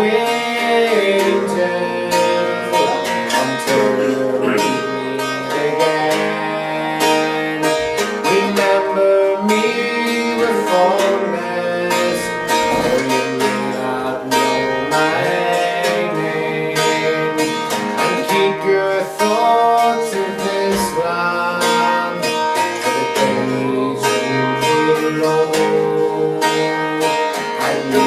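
Acoustic guitar playing an instrumental passage of an Irish folk song, with plucked notes ringing over chords.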